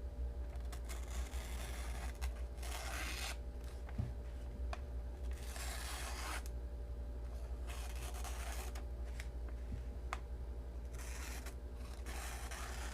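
Flat-ground D2 steel folding-knife blade slicing through phone-book paper in four drawn strokes, each a rasping paper hiss, with faint clicks between them. The edge catches slightly on the paper, a sign of a small burr left on it.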